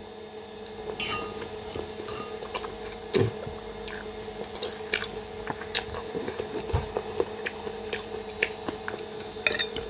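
A person chewing a mouthful of macaroni and mushrooms close to the microphone, with scattered short clinks of a spoon and fork against a glass bowl.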